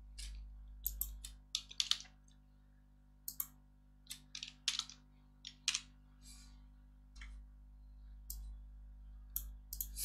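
Irregular, scattered clicks of a computer mouse and keyboard keys at a desk, over a faint steady low hum.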